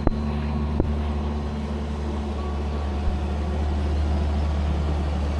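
An engine running steadily with a low hum that grows a little louder toward the end, with two short knocks in the first second.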